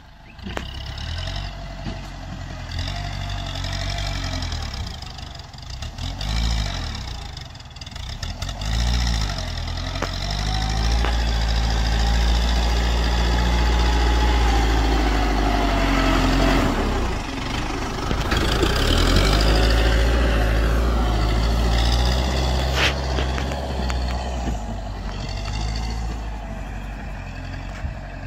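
Small tractor engine working under load as its front blade pushes a heap of soil, the engine note rising and falling with the load and loudest in the middle as the tractor comes close.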